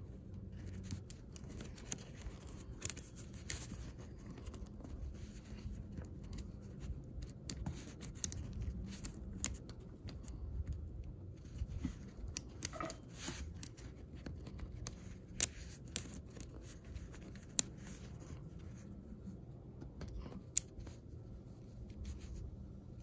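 Magnetic building blocks being handled and snapped together: scattered light clicks and rustles, with a few sharper clicks in the second half.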